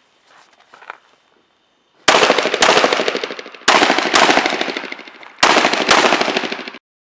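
Six semi-automatic pistol shots fired as three double taps, each pair about half a second apart and the pairs about a second and a half apart, each shot trailing off in a long echo. The sound cuts off suddenly near the end.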